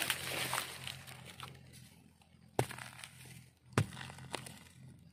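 A bare hand scraping and digging through dry soil and leaf litter, rustling and crunching for about the first second and then fading. Two sharp clicks follow, one past the middle and one louder a second later.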